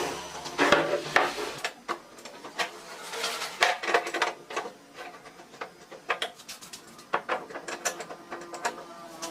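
Irregular clicks and knocks, a mechanical rattling, that come and go unevenly.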